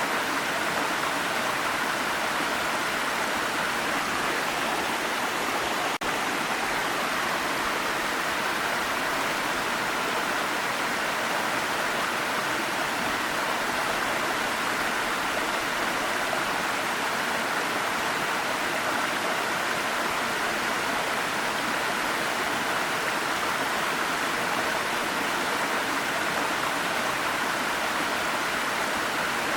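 Waterfall: a steady, even rush of falling water, with a momentary dip in level about six seconds in.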